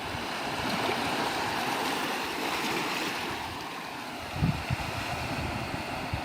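Sea waves washing in steadily, recorded live at the shore, with a couple of brief low thumps of wind on the microphone a little over four seconds in.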